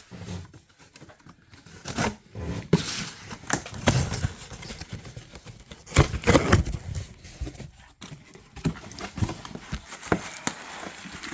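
A parcel being handled and torn open: tape and cardboard tearing, packaging crinkling, with scattered knocks and clicks at irregular moments.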